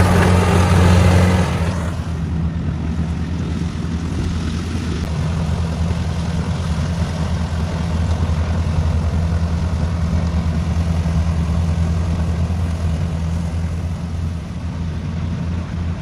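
Kubota DC-70X crawler rice combine harvester's diesel engine running steadily with a low hum while it harvests. The sound is louder and brighter for the first second and a half, then turns duller and steadier.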